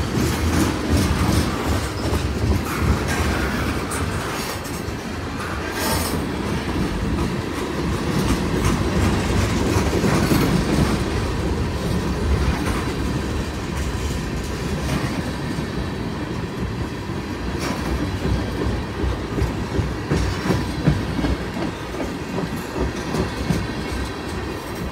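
Tank cars of a CN freight train rolling past at a level crossing: a steady rumble of steel wheels on the rails, with many sharp clicks as the wheels pass over the track.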